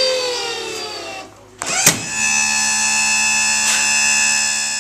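Power trim and tilt pump on a 1986 Johnson 50 hp outboard, its electric motor driving the hydraulic pump with a whine. The pitch falls steadily and the motor cuts out about a second and a half in. After a clunk it starts again and runs on at a steady pitch.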